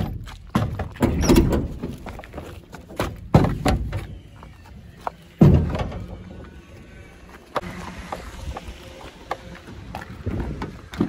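A run of sharp knocks and thuds from a bag being carried and a metal gate being handled, with rumbling handling noise from the moving phone; the loudest knocks come about three and a half and five and a half seconds in.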